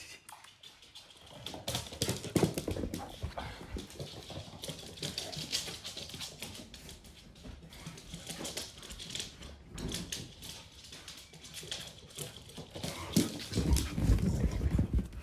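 Two dogs, an American Bully puppy and an American Staffordshire Terrier, playing roughly: quick scrabbling and scuffling across a laminate floor. The loudest heavy thumps and scuffling come near the end, as they wrestle right up close.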